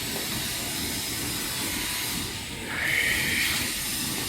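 Tunnel microwave drying machine running with a steady mechanical rumble and hiss. A brief high squeal about three seconds in is the loudest part.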